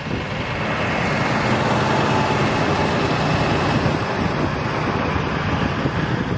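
A bus's engine running steadily as the bus drives slowly past.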